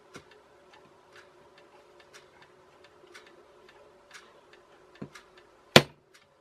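A small hammer taps a nail held against the end of a tiny electric motor's shaft, driving the offset vibration weight off: a light knock about five seconds in, then one sharp, loud metallic tap. A clock ticks faintly about once a second throughout.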